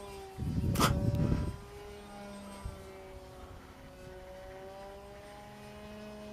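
Radio-controlled model airplane's motor and propeller droning steadily in flight at about half throttle, the pitch sagging slightly and then rising again. A brief rumble with a sharp click comes about a second in.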